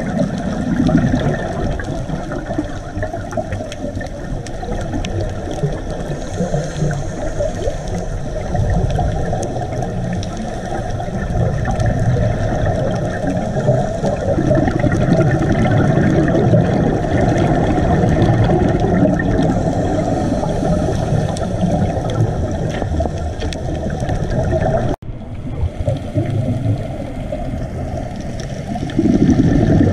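Underwater sound from a diver's camera: a steady rush of water noise with louder swells of a scuba diver's exhaled bubbles every few seconds. About 25 seconds in the sound breaks off abruptly for a moment, then carries on.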